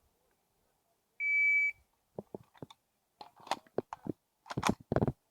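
Shot timer's start beep, one steady electronic tone lasting about half a second, a little over a second in. From about two seconds in, a run of short sharp cracks grows louder toward the end: the Uzi Pro 9 mm pistol opening fire on the course of fire.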